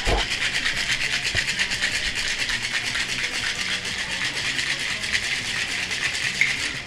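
Ice rattling in a two-piece metal cocktail shaker shaken hard in a fast, steady rhythm, chilling a cocktail; the shaking stops near the end.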